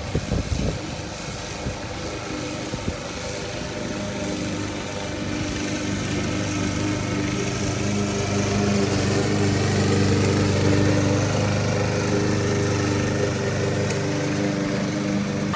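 PowerSmart self-propelled lawn mower's 161cc gas engine running steadily, with a few sharp knocks in the first second or so. The engine grows louder towards the middle, then eases slightly.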